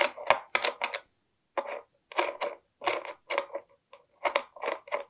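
A string of short metal scrapes and clicks as a tubular box wrench loosens the nut on a brushcutter gearhead and the nut is turned off the threaded shaft by hand, the flange held with a locking pin.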